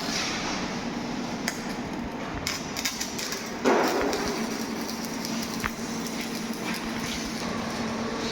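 Welding workshop noise: a steady hiss and hum with scattered sharp metal clicks, and one loud ringing strike of metal on metal about three and a half seconds in.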